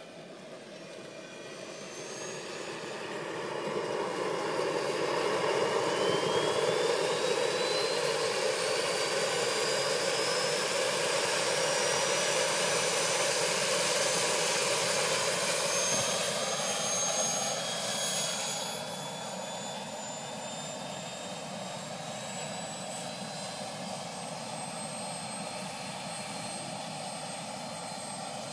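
Turbine engine of a large-scale RC Lama helicopter starting up: a whine rises steadily in pitch for about fifteen seconds under a loud rushing noise. About eighteen seconds in the rushing falls away and the turbine settles to a steady high whine at idle.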